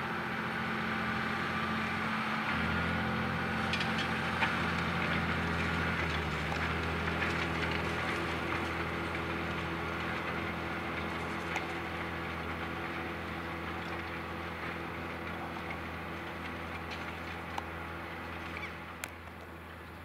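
John Deere 6150R tractor's six-cylinder diesel engine running steadily under load as it pulls a five-furrow semi-mounted plough through the soil. Its note shifts about two and a half seconds in, and the engine slowly fades as the tractor moves away. A few faint clicks are heard.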